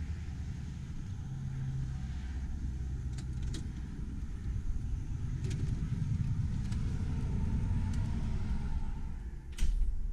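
Low, steady rumbling background noise with a few light clicks, then a short, sharp thump near the end.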